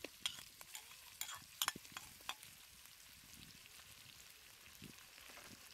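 Food frying in hot oil: a steady sizzle with several sharp pops and crackles in the first two seconds or so, then an even sizzle.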